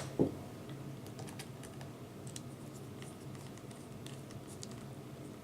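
Faint, scattered light clicks and taps of small laptop parts and the screen panel being handled, with one louder knock just after the start.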